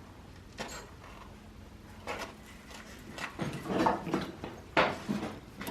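Scattered knocks and clanks of a spreading tool working on the sections of an old boiler. A busy cluster comes near the middle and a sharp knock near the end.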